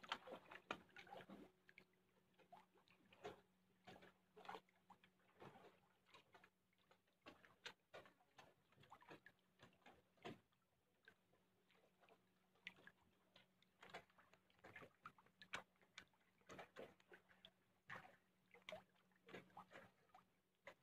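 Faint, irregular small splashes and patters from fish crowding and moving at the water's surface in a farm cage, over a low steady hum.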